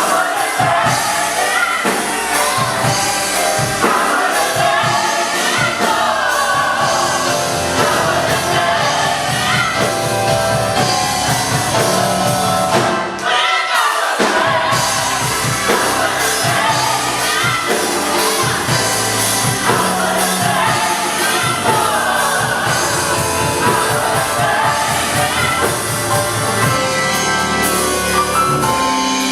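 Gospel choir singing with instrumental accompaniment, the low end dropping out briefly about halfway through.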